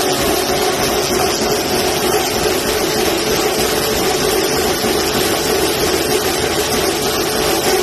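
Motorized Dog Trotter dog treadmill running at speed, its motor and belt making a loud, steady mechanical drone under a galloping dog.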